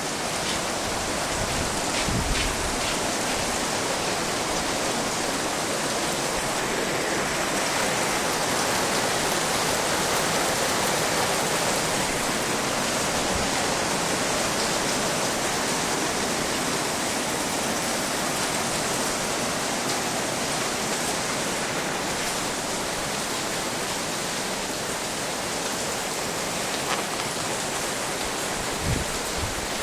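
Heavy rain falling steadily, a dense even hiss of downpour, with a few faint knocks near the start and near the end.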